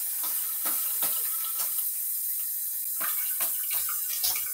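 Bathroom sink tap running, with irregular splashes as water is used to rinse between wet-shaving passes. The flow eases off near the end.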